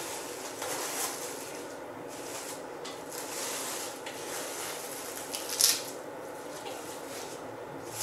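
Plastic cling film rustling and crinkling as it is pulled and folded around a disc of pastry dough on a silicone mat, with a sharper crackle a little past halfway.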